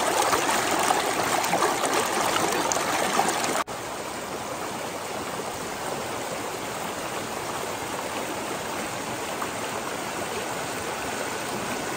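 Mountain stream rushing steadily, running high after days of rain. About four seconds in the sound cuts abruptly to a quieter stretch of the same rushing water.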